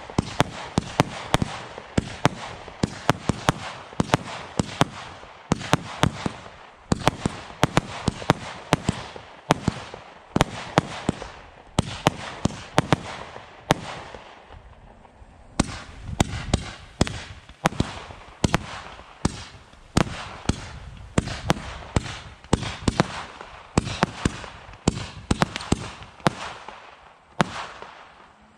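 Black Cat 'After Midnight' multi-shot firework cake firing: sharp reports come several a second with crackling in between. The shots thin out briefly about halfway through and die away just before the end.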